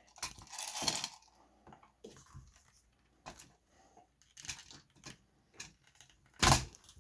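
Small clicks and scrapes from handling the forward grip of an airsoft rifle while trying to loosen it on its rail, with a rustle at the start and one louder clack near the end.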